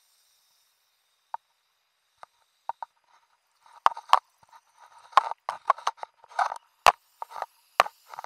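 Irregular clicks and knocks underwater around a scuba diver: a few scattered ones, then coming thick and fast from about four seconds in.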